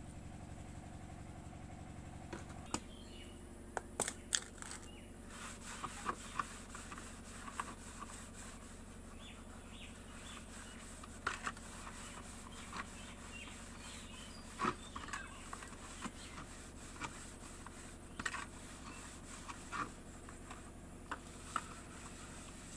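Hands scrubbing and rinsing a metal bowl with water on a concrete slab: irregular scraping and rubbing, with light knocks of the bowl now and then. A low hum in the background stops about two and a half seconds in.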